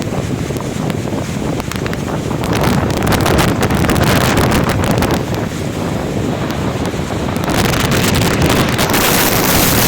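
Strong storm wind buffeting the microphone over the rush of rough, breaking sea. It surges twice, the second gust near the end harsher and hissier.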